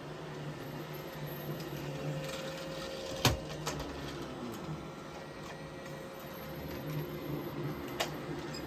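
Roomba i7 robot vacuum running with a steady motor hum, a sharp knock about three seconds in and a lighter one near the end.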